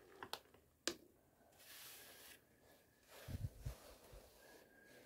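Faint handling sounds: two sharp clicks in the first second, like a piece of fire opal dropped into a plastic bucket of opal chunks, then a few low thumps a little past halfway.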